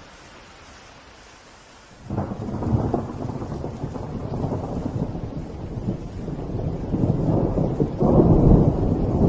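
Thunderstorm: steady rain hiss, then about two seconds in a sudden thunderclap breaks into a long low rolling rumble of thunder that swells again near the end.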